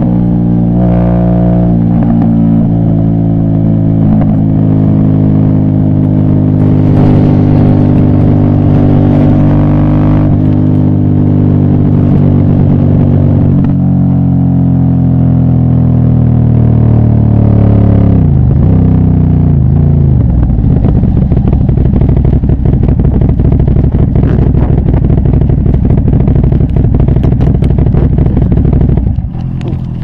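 Aprilia Shiver's V-twin engine running under way at a fairly steady pitch. The pitch sinks slowly, then dips and recovers sharply about two-thirds of the way in, and the sound gets quieter near the end.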